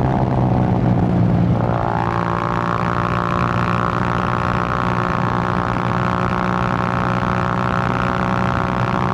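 Suzuki GN125's single-cylinder four-stroke engine running steadily under way. The throttle eases briefly near the start, then it pulls steadily again.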